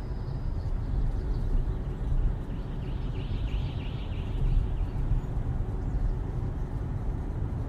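Car road noise heard from inside a moving car: a steady low rumble of tyres and engine with no music.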